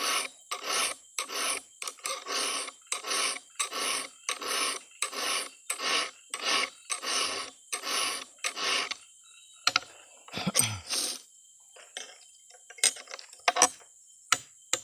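A round chainsaw file rasping through the cutters of a Stihl 070 saw chain in steady strokes, a little under two a second, only the forward push cutting as the chain is sharpened. The filing stops about nine seconds in, followed by a few light clicks and knocks.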